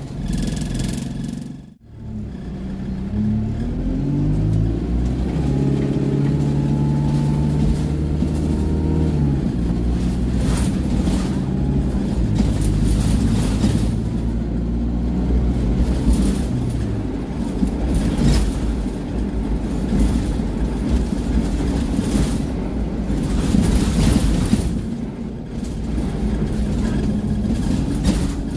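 Alexander Dennis Enviro200 Dart bus's diesel engine heard from inside the saloon. After a momentary break in the sound, it revs up with a rising pitch, holds a steady note under load for several seconds, and then gives way to a rumble of road noise and body rattles.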